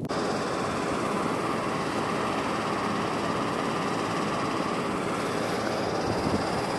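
ET22 electric freight locomotive standing with its machinery running: a steady, even whirring noise with no wheel clicks.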